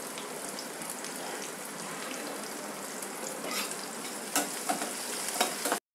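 Chopped onion, garlic and green chillies sizzling steadily in hot mustard oil in a frying pan, with a few clicks of a metal ladle against the pan as it stirs in the second half. The sound cuts off suddenly just before the end.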